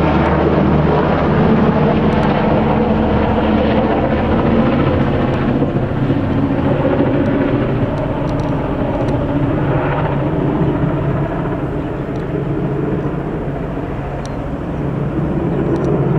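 Sikorsky S-92A helicopter flying low overhead, its four-blade main rotor and twin turboshaft engines giving a loud, steady drone. It eases off slightly a few seconds before the end, then swells again.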